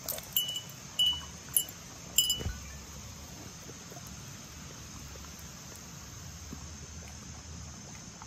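Five short metallic tings in the first couple of seconds, as the metal tag on a tracking hound's harness knocks about while she moves and noses the ground. A steady chirring of insects runs underneath.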